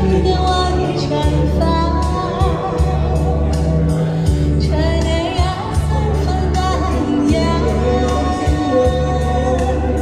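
A woman singing a pop ballad into a handheld microphone over a backing track, both amplified through a portable column PA speaker, with a bass line pulsing steadily underneath.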